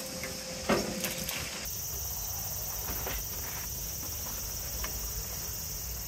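Insects chirring steadily in a high, shrill drone, with a single knock about a second in and a few faint clicks.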